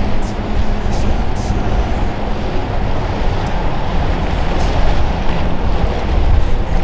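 Motorboat engines running loudly and steadily, with a dense rushing noise over them.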